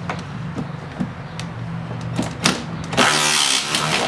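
Metal tool clicks and knocks on a radiator mounting bolt, then about three seconds in a power ratchet runs in a whirring burst of about a second, over a low steady hum.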